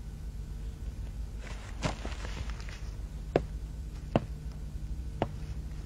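A short burst of rustling and knocks about two seconds in, then three sharp footsteps on a hard floor about a second apart, over a steady low hum.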